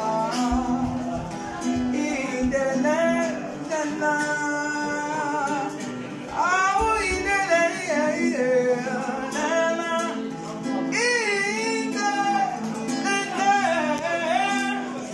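A man singing a song, accompanied by an acoustic guitar.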